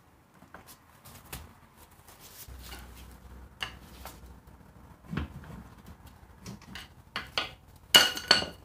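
Toyota 8-inch e-locker third member being rocked and worked loose from its axle housing: scattered metallic knocks and clunks, with a louder ringing metal clank near the end.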